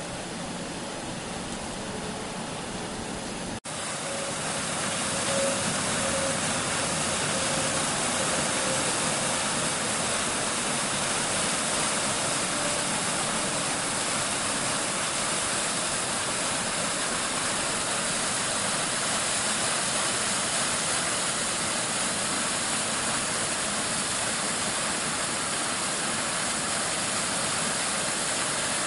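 Brandywine Falls running under its winter ice: a steady rush of falling water, louder and fuller after a cut about three and a half seconds in.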